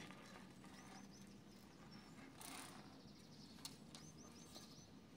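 Near silence with a small bird chirping faintly: two quick runs of about five high chirps, one about a second in and one near the end. A brief hiss and a single click sound in between.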